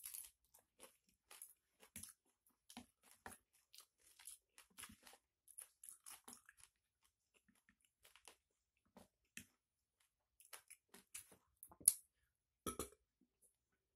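A person chewing and crunching a mouthful of pecel (peanut-sauced vegetables with noodles), in short irregular crunches. Scattered light clicks come from a metal spoon and fork against a plastic bowl, the sharpest one near the end.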